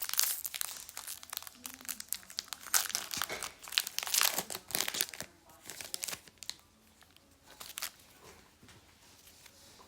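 Wrapper of a trading card pack crinkling and tearing as it is opened, dense crackling for the first half or so, thinning to a few soft clicks near the end.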